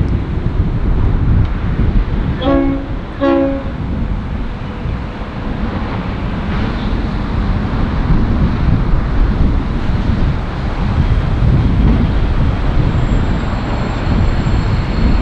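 Approaching diesel locomotives with a steady low engine rumble. About two and a half seconds in, the lead locomotive sounds two short horn blasts in quick succession.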